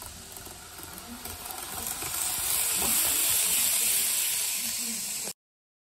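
N gauge model train running along the track: a small electric motor's whir and the wheels on the rails, growing louder as it comes up close, then cutting off suddenly near the end.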